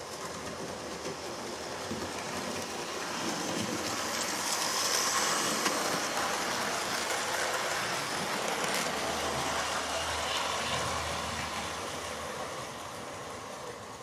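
Hornby OO-gauge model train of the Hogwarts Express set running on its track, motor and wheels. It grows louder as it comes near, is loudest about five seconds in, then slowly fades.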